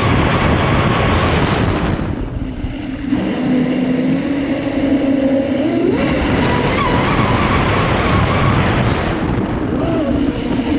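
Traxxas M41 RC speedboat's brushless motor whining under a loud rush of water and wind, heard from on board the boat at high speed. The throttle is eased about two seconds in, then opened again near six seconds with a rise in pitch.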